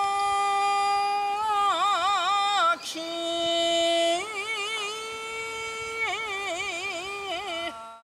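A boatman singing a Japanese folk song solo and unaccompanied: long held notes, each broken by quick wavering ornamental turns, with a short breath about three seconds in. The song ends near the close.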